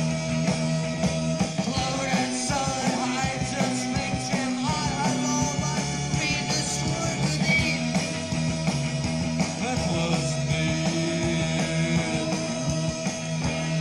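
Psychedelic rock band music: held low notes with a higher line bending in pitch over them.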